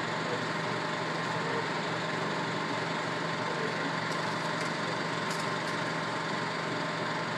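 Steady city street noise with a constant low hum, even and unchanging throughout, with a few faint high ticks about halfway through.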